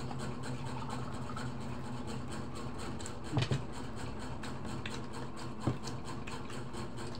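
A steady low hum, with light knocks as a drinking glass and plastic water bottle are handled on the table: two close together about three and a half seconds in and another near the six-second mark.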